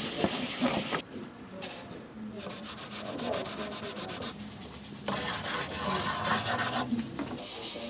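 Scratchy rubbing and scraping of drawing tools on paper in rapid strokes. About five seconds in comes a louder run of quick scraping, as a pencil is shaved with a blade.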